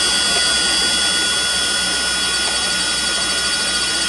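A 750-watt 48-volt DC e-bike motor spinning freely with no load, giving a steady high whine at constant speed.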